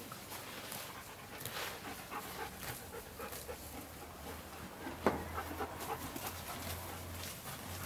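Horse grazing close by, tearing and chewing grass in a string of short crunching rips, with one sharp snap about five seconds in.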